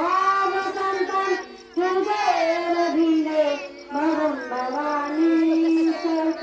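A high female voice singing a devotional song in melodic phrases with short breaths between them, holding one long note near the end.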